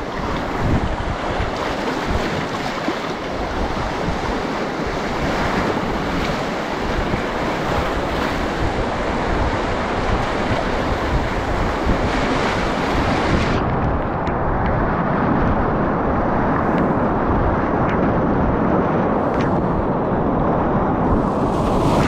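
Whitewater rapids of a mountain river, rushing and splashing close around a packraft running through them. About two-thirds of the way through, the sound suddenly turns duller as its hiss drops away.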